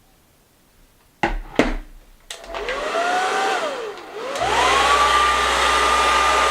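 Two sharp clicks, then a handheld hair dryer switched on: its motor whine rises with a rush of air, dips briefly, then climbs again and runs steady with a high whine.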